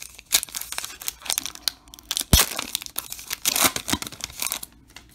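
A 2021 Topps Heritage baseball card pack's crimped silver foil wrapper being torn open by hand, crinkling in a quick run of sharp crackles with one loud snap about two seconds in.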